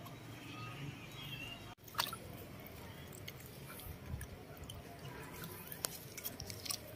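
Faint sloshing and dripping of water in a plastic basin as a baby macaque wades in, with scattered small clicks and taps.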